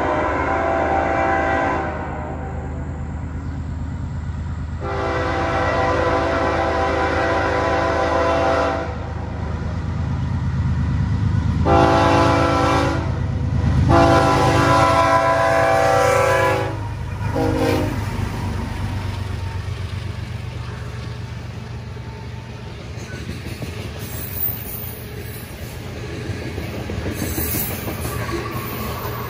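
Diesel freight locomotive horn blowing a sequence of blasts: two long ones, a short one and a long one, the grade-crossing signal, then a brief extra toot. The BNSF grain train then rolls past, with a steady low rumble of locomotive engines and steel wheels on rail.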